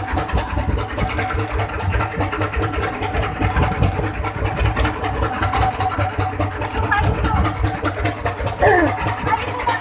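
A boat's engine running steadily, a constant low drone. Voices call out briefly about seven seconds in and again near the end.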